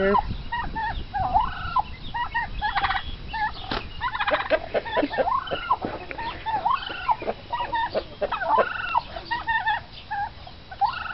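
Domestic turkeys, a bourbon red tom and a royal palm hen, calling: a run of short chirping and yelping notes in quick, irregular clusters.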